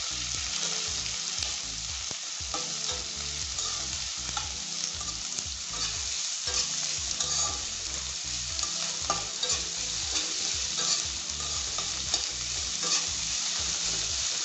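Sliced onions and whole spices sizzling in hot oil in a kadai, stirred continuously with a spatula that scrapes the pan in frequent short strokes; the onions have just gone in and are starting to fry.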